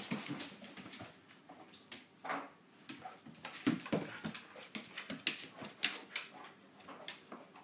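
Spitz-type dogs playing with new squeaky toys: a few short whimpering cries about two and four seconds in, amid scattered quick clicks and taps.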